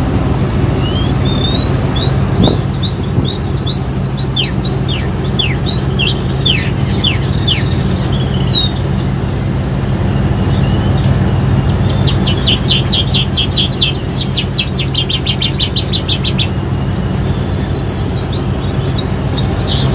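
Caged songbird singing loudly over the steady drone of the boat's engine. First comes a run of rising whistled notes, then, after a pause, a fast trill of many short notes and a brief closing phrase.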